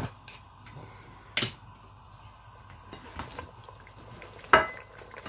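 Gas hob being relit under a pressure cooker: a few sharp clicks spaced one to three seconds apart, the loudest about four and a half seconds in.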